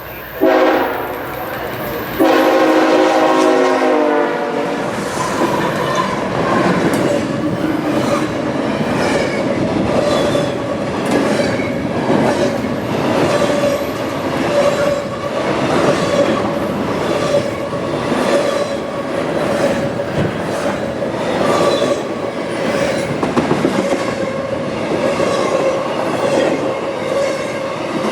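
Freight locomotive horn blowing twice, a short blast then a longer one. The intermodal train then runs past, wheels clicking rhythmically over the rail joints, with a steady high tone over the rumble.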